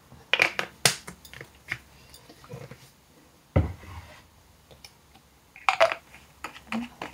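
Clicks and knocks of a small clear bottle and its spray pump head being handled on a desk, with one louder thud about three and a half seconds in. Near the end come a few quick clicks as the spray head is fitted onto the bottle.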